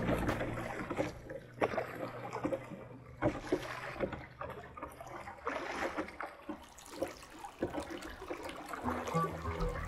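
Double-bladed paddle dipping into calm water in irregular strokes from a sit-on-top kayak, with water trickling and dripping off the blades.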